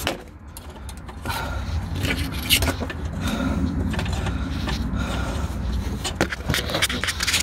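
Metal spanner clinking and scraping as a stubborn exhaust oxygen sensor is worked loose, a few sharper clinks among them, over a steady low rumble.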